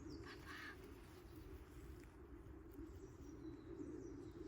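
Birds chirping in short high falling notes, with one fuller call about half a second in, over a steady low background noise.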